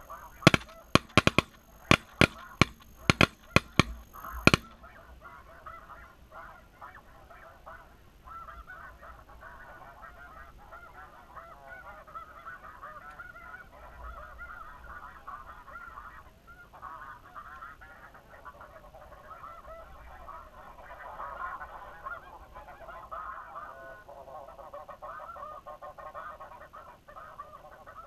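A constant chorus of snow goose honks. In the first four and a half seconds a rapid volley of about a dozen shotgun shots sounds over it, loudest of all.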